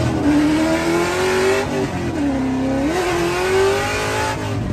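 Car engine heard from inside the cabin, revving as the car accelerates down a track: the pitch climbs, falls about 2 seconds in, then climbs again about a second later.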